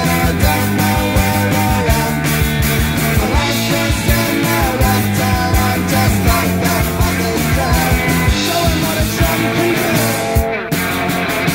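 Punk rock record playing: a full band with a steady, driving drum beat. There is a short break about ten seconds in.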